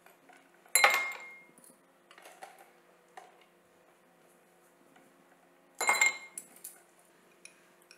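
Ice cubes dropped into an empty glass tumbler: two sharp clinks about five seconds apart, each ringing briefly against the glass, with a few faint knocks of the ice settling.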